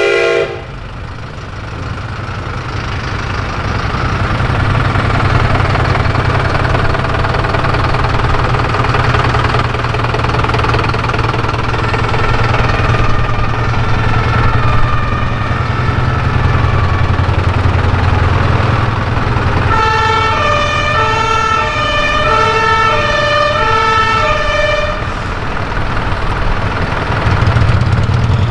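Fire trucks' diesel engines rumbling as they drive slowly past, with a wailing siren cutting off just after the start. About two-thirds of the way through, a two-tone siren (German Martinshorn) sounds its alternating high-low notes for about five seconds.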